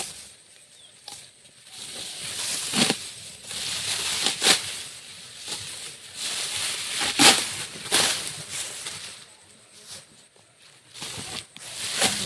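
Dry rice stalks being cut by hand and rustled as they are gathered, with irregular crisp swishes a second or more apart.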